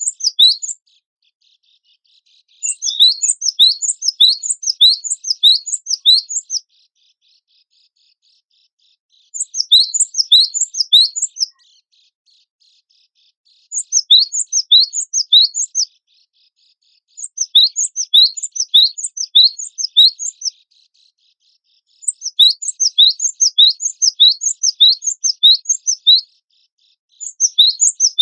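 Gelatik batu wingko (cinereous tit) song: rapid runs of high, sharp chirping notes, several notes a second, in bursts of two to four seconds separated by short silent gaps.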